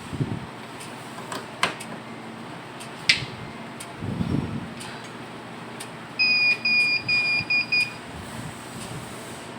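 Hikvision CCTV recorder's buzzer beeping: a quick run of about six high, pure beeps near the end, the first a little longer than the rest. A few sharp clicks and dull knocks come before it, the loudest click about three seconds in.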